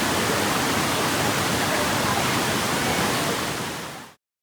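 Waterfall rushing: a steady rush of falling water that fades out and cuts to silence near the end.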